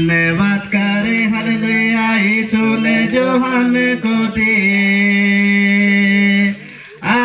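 A male voice chanting a slow melody of long held notes, breaking off briefly about six and a half seconds in.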